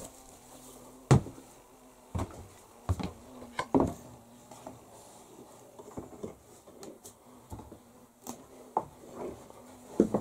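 Scattered knocks and bumps on wooden boards inside a small wooden bathhouse. The loudest is a sharp knock about a second in, with a faint buzz underneath.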